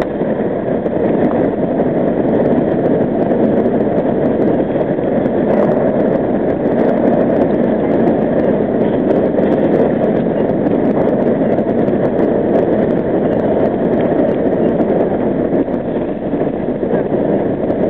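R38 subway car running at speed through a tunnel, heard from inside the car: a steady, loud rumble of steel wheels on the rails and the train's running gear.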